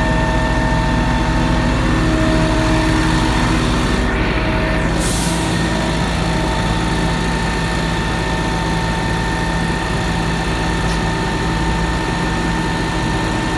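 Johnston street sweeper's engine running at a steady speed, with several steady whining tones over its hum. About five seconds in there is a short hiss, and the tones shift in pitch.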